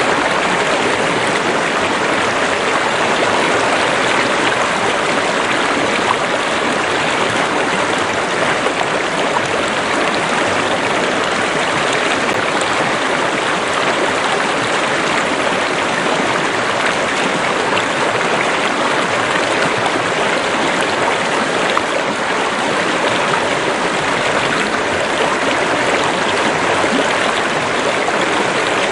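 A stream or small river running steadily over rocks: a continuous rush of flowing water that stays even throughout.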